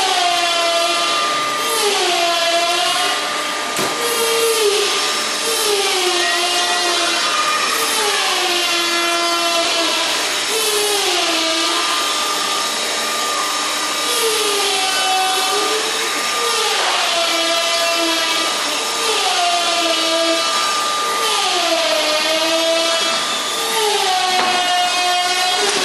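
Electric motor of plastic sheet-working machinery running with a whine that dips in pitch and rises again about every two seconds, as if under a repeating load, over a faint steady high tone.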